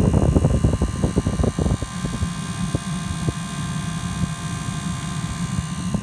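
Southwind Stewart-Warner 12-volt gasoline heater running: a steady low combustion rumble with a thin steady whine above it. The rumble is rougher and louder for the first two seconds, then settles.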